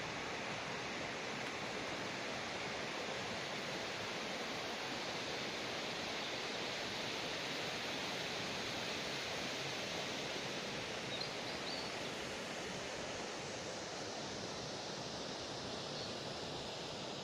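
Steady rushing forest ambience, an even hiss-like noise with no distinct events, and a faint short chirp about eleven seconds in.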